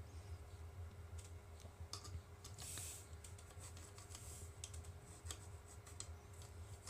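Faint light clicks and a few short scratches: a pencil making marks on a rocket booster tube through the gaps of a plastic 3D-printed fin alignment tool, with the tool tapping against the tube.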